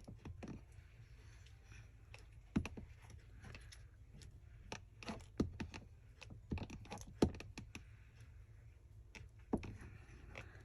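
Hands working paper and craft tools on a tabletop: irregular light taps and clicks, with soft rubbing of paper between them.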